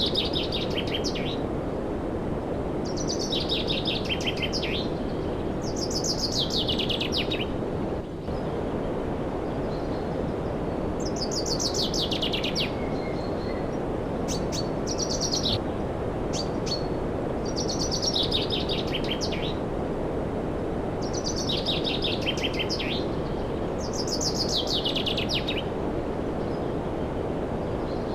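A songbird repeats the same short, falling, trilled phrase every two to three seconds over a steady rushing noise.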